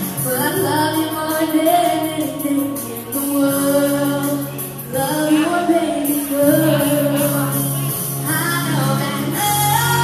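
A young girl singing a song into a microphone over instrumental accompaniment, in three sung phrases with short breaks between them.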